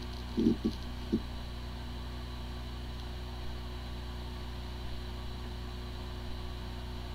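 Hard disk drive spinning with a steady hum and several constant whining tones. It sounds like a healthy drive, but its firmware is corrupted, so the computer cannot detect it. A few short, low knocks come in the first second or so.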